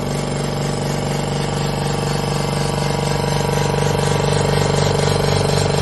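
Pacini 8-litre silent oil-free air compressor running: a steady mechanical hum with a fast, even pulse, growing slightly louder.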